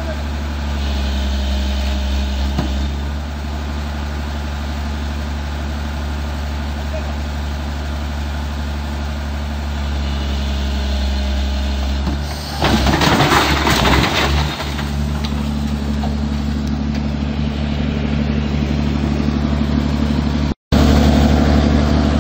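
Tata Hitachi EX110 crawler excavator's diesel engine running steadily, with a loud crash lasting about two seconds roughly twelve and a half seconds in as the machine tips off the trailer.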